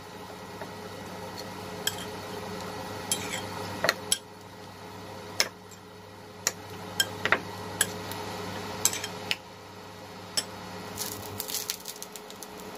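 Steady low electric hum of an induction hob heating a frying pan of oil, with scattered sharp clicks and clinks of cookware. Near the end there is a quick cluster of clicks as the pan is taken by its handle.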